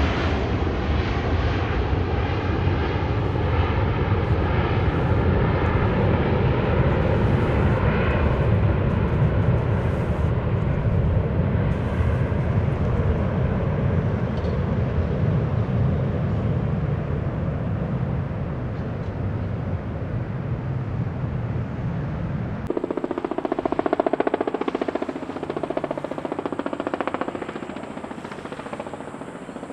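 Airbus A380's four jet engines at takeoff power, a loud steady jet noise that slowly fades as the aircraft climbs away. About three-quarters of the way through, the sound changes abruptly to a thinner jet noise with little low end, which swells briefly and then fades.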